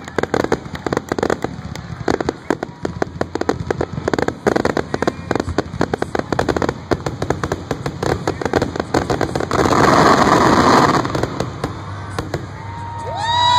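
Fireworks display: a rapid, dense run of bangs and crackling, with a louder, thicker stretch about ten seconds in. A held tone comes in near the end.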